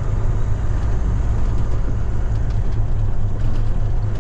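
Semi-truck's diesel engine running under way, heard inside the cab as a steady low drone.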